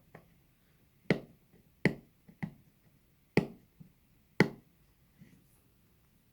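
Five sharp taps and knocks, irregularly spaced, as the phone's retail box is handled and opened.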